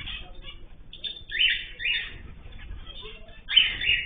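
Cage birds calling: three loud, short, harsh calls, about a second, two seconds and three and a half seconds in, over softer ongoing chirps.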